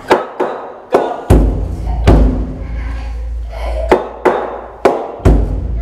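Large barrel-shaped taiko drum struck with wooden sticks, about ten strokes at an unhurried, uneven pace. Some are sharp, light hits; heavier strokes set off a deep boom that rings on for a couple of seconds.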